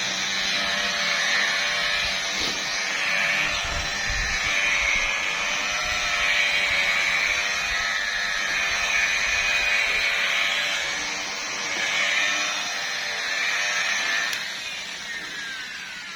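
Electric car polisher running steadily, its pad working the painted hood in the first polishing pass, then slowing and winding down near the end.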